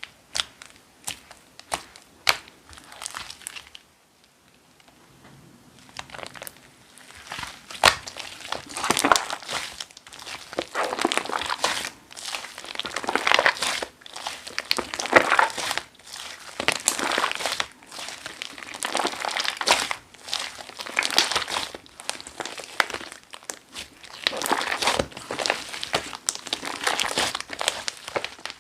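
Slime mixed with shaving foam being kneaded and stretched by hand, giving crackling, popping bursts that swell and fade every second or two. A few separate pops open it, followed by a short pause before the steady working starts.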